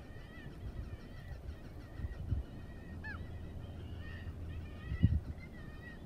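Birds calling over and over in short, high calls, with one falling call about three seconds in. Under them is a low rumble, with a louder thump about five seconds in.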